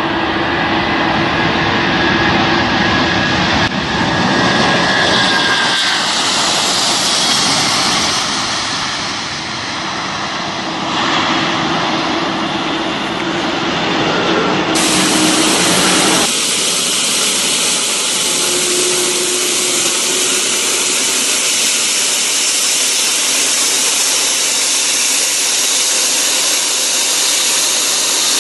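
Twin-engine Boeing 777 jet engines at takeoff thrust, a loud steady jet noise through the takeoff roll and climb-out, changing abruptly at several cuts. About halfway through, it gives way to a steadier high hiss of an airliner's jet engines at low power on the ground.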